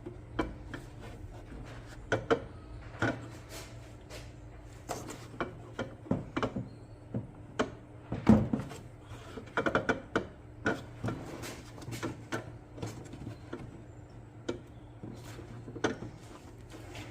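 Scattered clicks and knocks of hands working at a plastic car headlight unit, twisting the collar of a stuck high-beam bulb, over a steady low hum.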